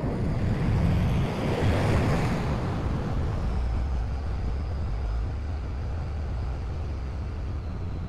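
Engine of farm machinery running steadily out of sight, a low rumble that slowly fades.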